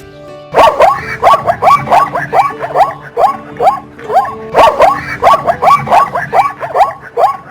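Zebra calling in a rapid run of high, barking yelps, about three a second, starting about half a second in.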